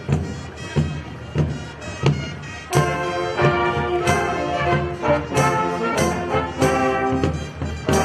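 Live brass band marching music. A steady drum beat about every two-thirds of a second is joined by full brass chords a little under three seconds in.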